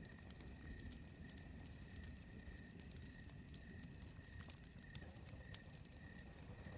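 Faint campfire crackling, scattered sharp snaps over a low rumble, with a thin steady high-pitched tone running underneath.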